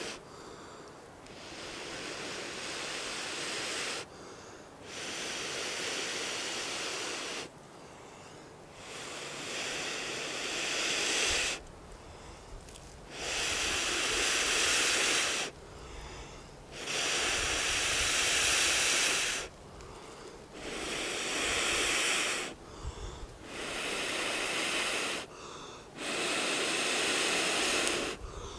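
A person blowing air hard in long breaths, about eight blows of two to three seconds each, every one starting and stopping sharply, with short pauses for breath between them.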